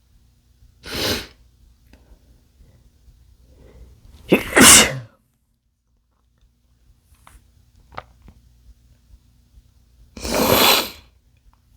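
A man sneezing three times: about a second in, a little after four seconds in (the loudest), and near the end.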